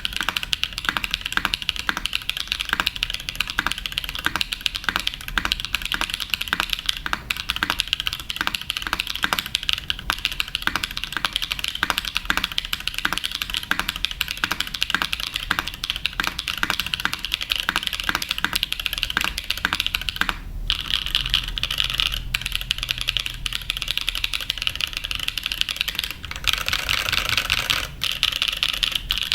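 TGR 910 RE clone mechanical keyboard being typed on continuously, with a steady stream of clacky keystrokes. About 20 s in the typing breaks off briefly, and a denser burst of fast keystrokes comes near the end.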